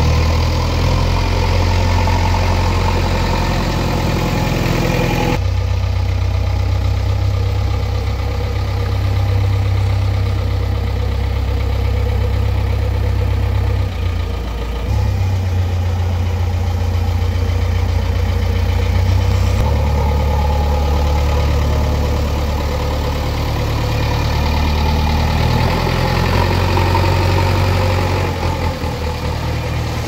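JCB 3DX Eco backhoe loader's diesel engine running steadily up close, its low engine note shifting abruptly a few times.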